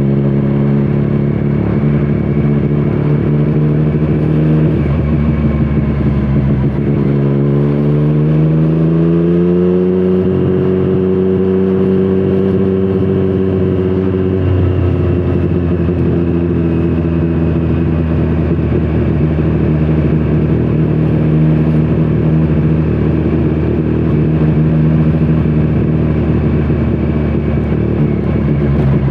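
2017 Triumph Street Triple 765RS's inline three-cylinder engine through a Scorpion Serket Taper carbon exhaust, riding along. The revs dip about five seconds in, climb smoothly for about three seconds, hold, drop sharply about halfway through, then stay steady.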